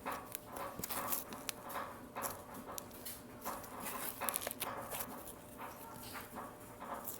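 Hands squishing and stretching clear-glue glitter slime, making irregular small squelches, pops and crackles.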